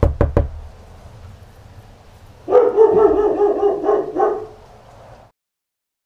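A dog barking: three quick, sharp sounds right at the start, then about two seconds later a loud run of barking with a wavering pitch that lasts about two seconds.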